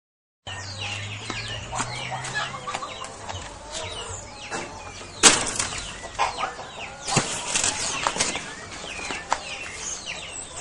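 Birds chirping and calling, over the rustle of large banana leaves being handled, with a few sharp snaps about five and seven seconds in.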